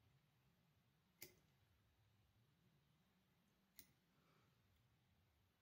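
Two sharp snips of small fly-tying scissors cutting off excess bucktail wing fibres, about two and a half seconds apart, over faint room tone.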